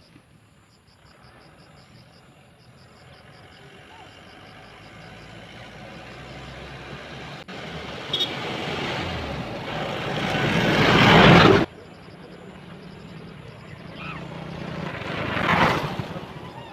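A dump truck approaching and passing close by, its engine and tyre noise swelling to the loudest point about eleven seconds in and then cutting off abruptly. A second, smaller vehicle passes near the end.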